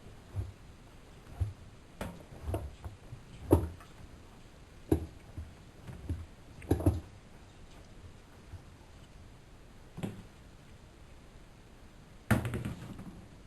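Irregular mechanical clicks and knocks from handling a Lloyds 825 washing machine, with a louder rattling knock near the end.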